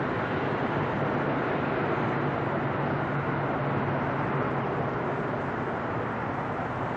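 Airbus A380 airliner's four jet engines rumbling as it flies away low overhead on final approach with gear down. The noise is steady, with a low hum under it, and eases slightly near the end.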